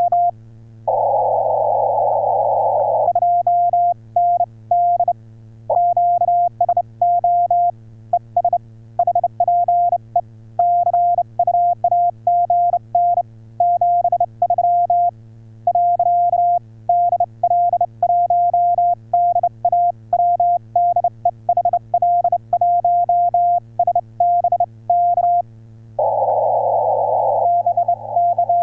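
Morse code from an HF amateur radio transceiver during a CW contact: a single beep tone keyed on and off in dots and dashes at a steady sending pace. A short burst of receiver hiss comes about a second in, and hiss returns near the end with the Morse carrying on over it. A faint low hum runs underneath.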